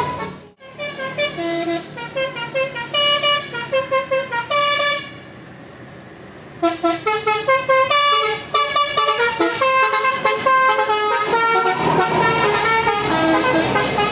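Bus telolet horn, an electric multi-trumpet air horn, playing a fast tune of short notes. It pauses for about a second and a half around the middle, then plays on.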